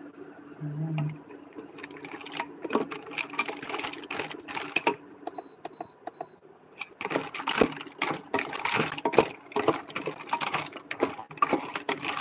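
Mussel shells clattering against each other and the pot as a wooden spatula stirs them: a rapid jumble of clicks that gets much busier about seven seconds in.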